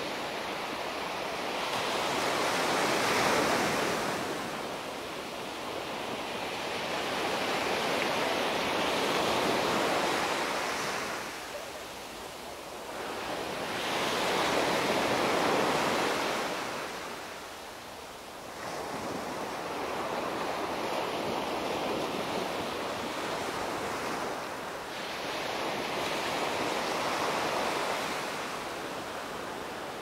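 Small sea waves breaking and washing up a sandy beach, the surf swelling and ebbing in slow surges about every six seconds.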